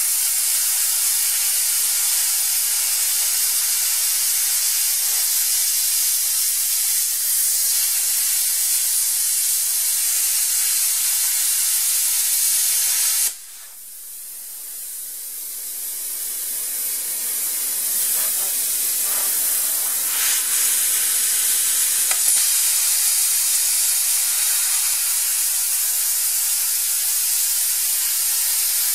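Eastwood Versa Cut 60 plasma cutter hissing steadily as its arc cuts through 3/4-inch steel. About halfway through the hiss drops off sharply as the arc stops, then builds back up over a few seconds and runs steadily again as cutting resumes.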